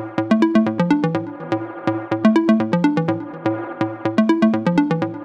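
Background electronic music: short plucked synth notes over a repeating bass line, with a steady beat.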